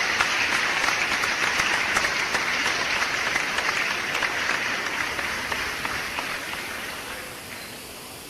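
Applause: a dense patter of many hands clapping, which starts suddenly, holds steady, then fades away over the last few seconds.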